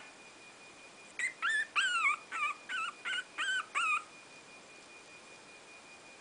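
Three-week-old Brazilian Terrier puppy whimpering: a quick run of about eight short, high, wavering cries, starting about a second in and stopping after about three seconds.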